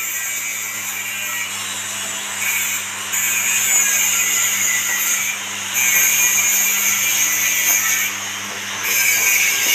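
A horizontal ribbon feed mixer and its screw conveyor running, with a steady low hum under a rushing hiss of ground feed being churned and poured into the trough. The hiss swells for a couple of seconds at a time, about three times.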